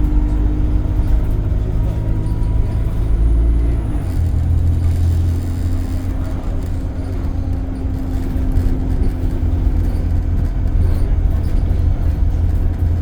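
Alexander Dennis Enviro 200 bus heard from on board: a steady low drone of the engine and air compressor. About four seconds in the pitch shifts and a heavier low hum takes over.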